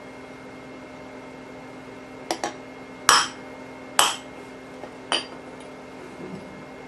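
Hammer striking a steel punch to drive old rivets out of an AK-47 trunnion: a handful of sharp metallic strikes in the second half, about a second apart, each ringing briefly. A steady low hum runs underneath.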